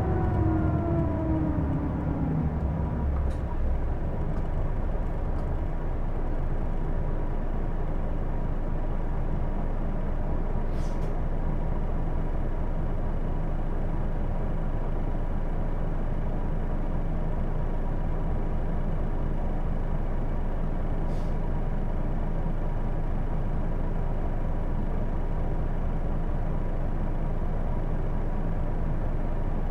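Interior running sound of a Hino Blue Ribbon II diesel city bus: a whining set of tones falls in pitch over the first couple of seconds as the bus slows, then the bus runs on steadily with a constant high tone over the engine noise and a few faint clicks.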